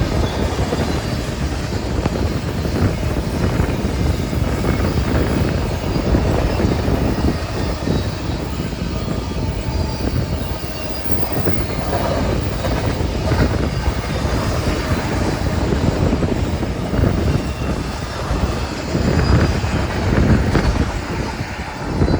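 Freight train of double-stack intermodal cars rolling past, a steady low rumble of steel wheels on rail with frequent clanks and knocks.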